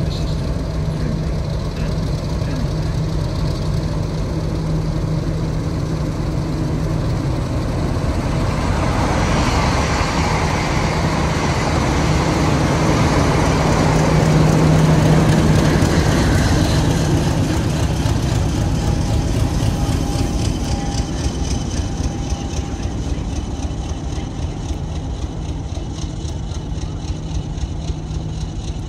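Class 50 diesel locomotive 50008 'Thunderer', with its English Electric 16-cylinder engine, pulling slowly out of the station at low power rather than opening up, its engine hum swelling to its loudest as it passes about halfway through. The coaches then roll past with a fast regular clicking from their wheels.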